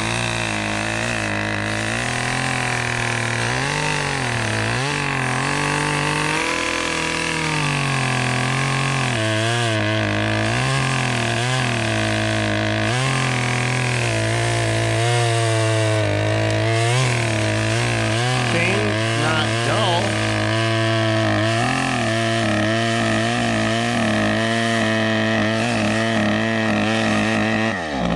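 Red Redmax two-stroke chainsaw cutting through a fallen birch trunk, its engine pitch rising and falling as the chain bites into the wood.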